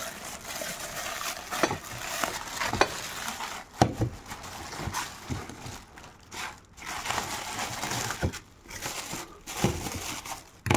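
Thin plastic bag crinkling and rustling as it is pulled and cut off a new pan, with a few sharp clicks and light knocks.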